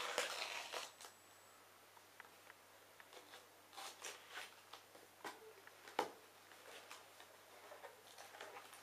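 Packing tape being peeled off a cardboard box, with a loud rasping rip in the first second, then faint rustles and taps of hands on the cardboard and a sharp tap about six seconds in; the cardboard flaps are pulled open near the end.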